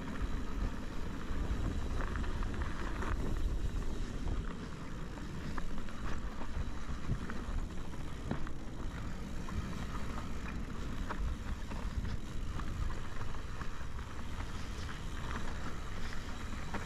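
Mountain bike descending a rough, dry dirt trail at speed: wind rumbles on the camera's microphone while the tyres crunch over loose gravel and the bike rattles with frequent small clicks and knocks.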